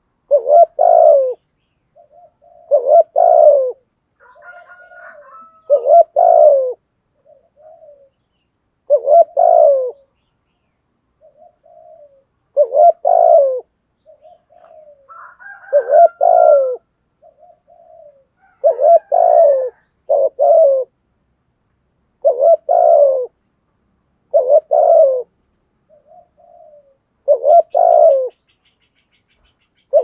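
Spotted dove cooing its repeated song, the 'thúc gù' call: soft short lead-in notes followed by a loud double coo, about one phrase every two to three seconds. Higher chirps from another bird break in briefly twice.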